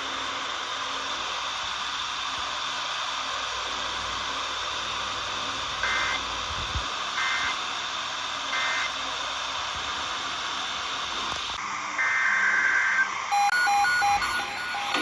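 Steady radio static hiss, broken by three short bursts of Emergency Alert System digital data tones about a second and a half apart, the pattern of the end-of-message code. About twelve seconds in comes a longer, one-second burst of the same data tones. Near the end a beeping electronic melody of stepped tones starts.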